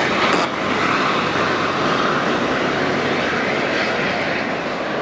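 V/Line VLocity diesel multiple unit pulling away along the line, its diesel engines running under power in a steady rush of noise that fades slightly toward the end.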